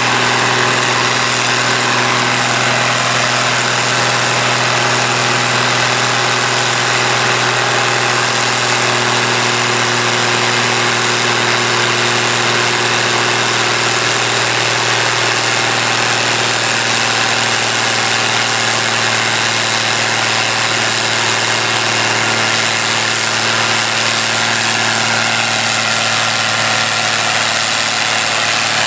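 Case IH farm tractor's diesel engine idling steadily.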